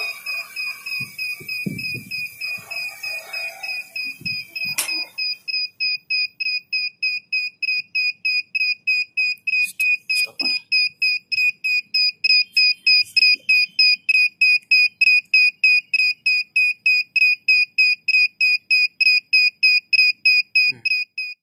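Electronic warning beeper on RC drone gear sounding a rapid, steady high-pitched beep, about four beeps a second, as a low-battery warning near the end of a long quadcopter flight. For the first few seconds a hiss and a few low thumps sit under it, ending in a sharp knock about five seconds in.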